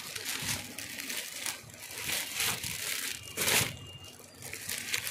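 Clear plastic packets of unstitched churidar suit pieces crinkling and rustling as they are picked up and shifted, with a louder rustle about three and a half seconds in.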